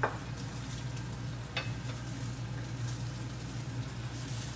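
Food sizzling faintly in a frying pan under a low steady hum, with two light utensil clicks, one at the start and one about a second and a half in.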